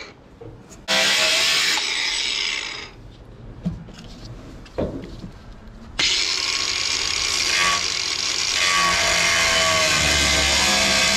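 Ryobi angle grinder with a 1 mm cutoff wheel cutting through an aluminium boat dash panel. A short cut starts about a second in and stops, there are a few knocks in a pause, then steady cutting resumes about halfway through and runs on.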